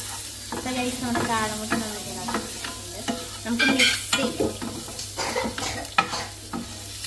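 Spatula stirring boiled quail eggs through masala in a nonstick frying pan: repeated scrapes and knocks against the pan over a light sizzle of frying.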